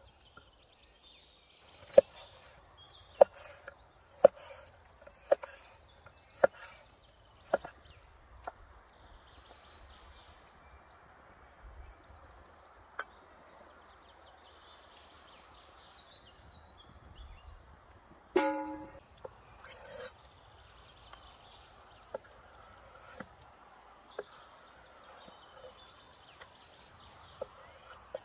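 Cleaver chopping food on a wooden cutting board, sharp knocks about once a second, then a few sparser chops near the end. A single louder ringing knock comes about two-thirds of the way through, with birds chirping faintly throughout.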